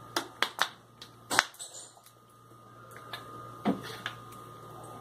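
A plastic cooking-oil bottle handled and tipped over a blender jar to pour: a few sharp plastic clicks and knocks, the loudest about a second and a half in, and another knock near the end.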